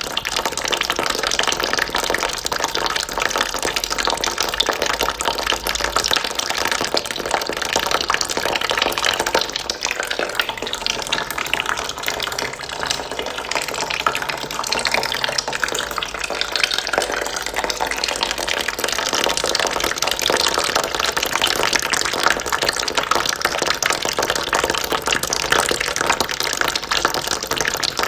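A steady stream of water running and splashing into a bucket, even and unbroken.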